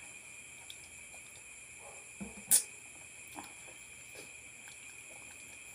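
Faint steady chirring of crickets, with a single sharp knock about two and a half seconds in as a plastic juice bottle is set down on the table.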